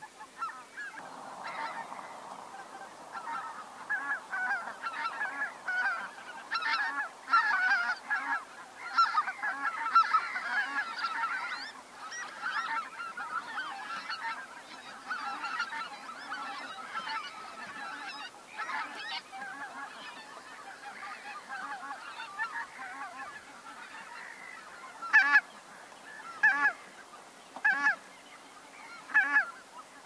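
A flock of geese calling, many honks overlapping, busiest in the first half. Near the end four loud separate calls stand out.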